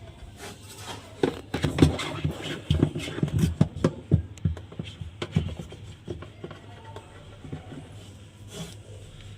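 Irregular clicks, light knocks and scraping, a few a second, as parts are handled.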